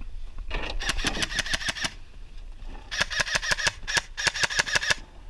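Airsoft rifle firing on full auto: two rapid bursts of about ten shots a second, the first about a second and a half long and the second about two seconds.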